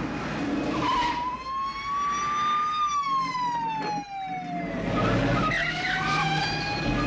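Police car siren wailing, rising slowly for about two seconds and then falling, over car engines running in a chase.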